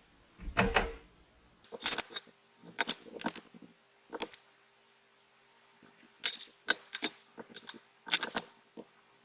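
Irregular sharp clicks and taps of tweezers and fingers handling a phone's rear glass panel and adhesive film on a work surface, some coming in quick pairs.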